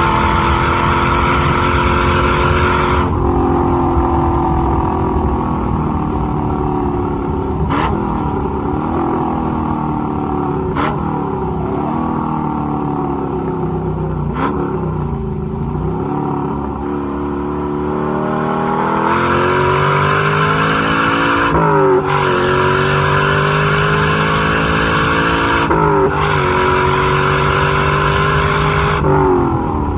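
1962 Chevrolet Corvette's 327 V8 engine under way, pulling through the gears: the pitch climbs under throttle and drops sharply at each shift, about six times, with a short tick at some of the shifts. It eases off to a quieter, lower note around the middle, then pulls hard again.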